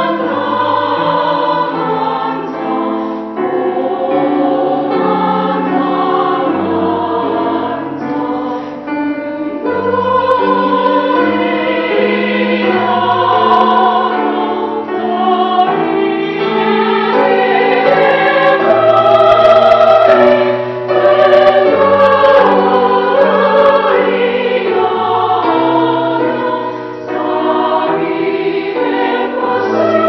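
Church choir of men's and women's voices singing an anthem in several parts at once, with notes held and moving together.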